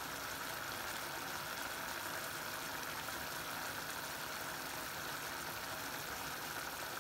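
Pigeon peas in coconut milk bubbling at a steady boil in a pan: an even, unbroken simmering hiss.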